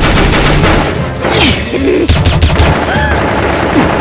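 Rapid bursts of machine-gun fire sound effects over background music: one burst in the first second and another a little after two seconds in.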